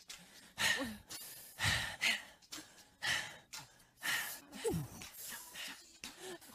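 A person's breathy sighs and gasps, about one a second, some with a short voiced moan that falls in pitch, the clearest about two-thirds of the way through.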